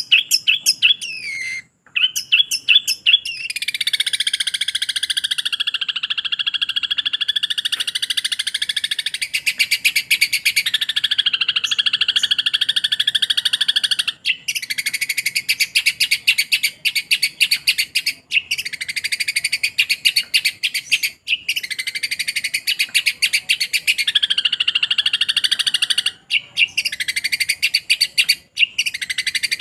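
Long-tailed shrike (cendet) singing a fast, chattering song of rapidly repeated notes in long runs, broken by brief pauses.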